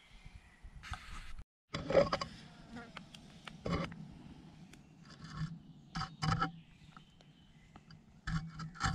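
Footsteps on dry, leaf-strewn ground and the rustle of black nylon webbing straps being carried, in irregular bursts of scraping and rustling. The sound cuts out completely for a moment about one and a half seconds in.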